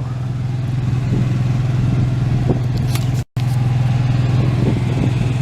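An engine idling steadily with a low, even hum. The sound cuts out for a split second a little past halfway.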